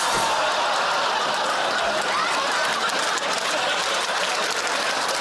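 Studio audience laughing and applauding.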